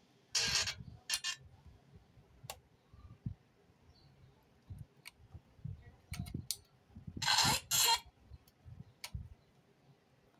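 Handling sounds of speaker wires being fitted into spring-clip speaker terminals: scattered sharp clicks, with short, louder scraping bursts about half a second in and again about seven seconds in.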